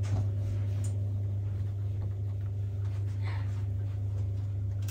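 A steady low hum, with faint soft ticks and knocks.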